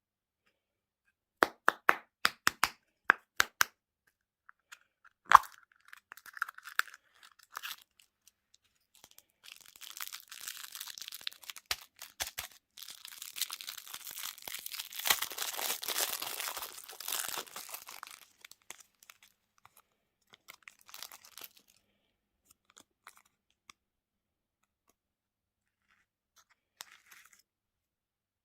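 Close-up sounds of candy desserts being handled and eaten: a quick run of about nine sharp clicks, one loud crack, then several seconds of crinkling and crunching, trailing off into scattered faint clicks.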